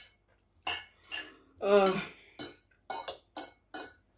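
Metal forks clinking and scraping on ceramic plates while noodles are twirled and eaten: a string of short clinks, about two a second. A short voiced sound from one of the eaters, about two seconds in, is the loudest moment.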